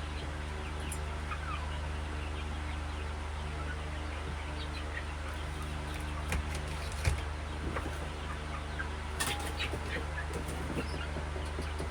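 Chickens clucking, with a few sharp knocks and rustles from about six to ten seconds in, over a steady low hum.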